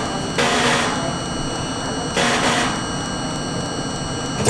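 A stationary R42 subway train idling with a steady whine from its on-board equipment. Two short bursts of hiss come in, one about half a second in and one about two seconds in, and there is a brief click near the end.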